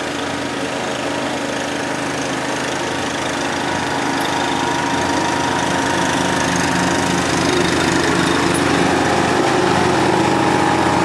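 John Deere D100 riding lawn tractor's engine running steadily as it drives across grass, getting gradually louder as it comes closer.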